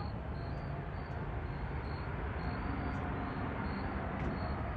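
Distant Boeing 777-200ER twin jet engines (Rolls-Royce Trent 892) giving a steady low rumble as the airliner rolls on the runway at the start of its takeoff, growing slightly louder.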